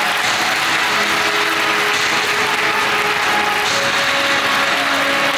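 Audience applauding steadily, with music playing underneath.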